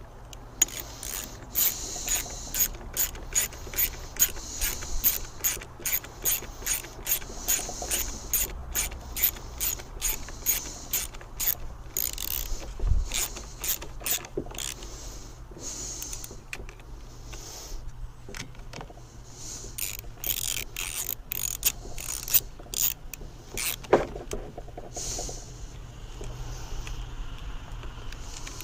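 A hand ratchet clicking in a fast, even run of about three strokes a second, then a pause, then a few slower, irregular clicks as a fastener is turned.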